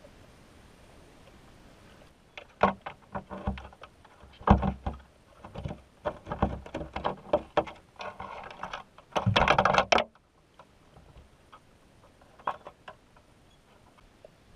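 Irregular muffled knocks and clicks picked up underwater through a camera housing fixed to a submerged crab trap, as the trap and its rope shift; they start about two seconds in and end in about a second of dense scraping, with a few faint knocks afterwards.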